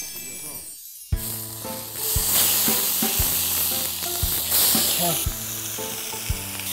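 Thick-cut pork belly sizzling on a hot round griddle pan over a campfire, a steady frying hiss that comes in suddenly about a second in. Background music with a beat about once a second runs under it.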